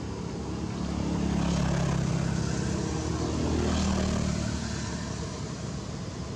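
An engine passing at a distance: a steady low drone that swells about a second in and fades over the last seconds.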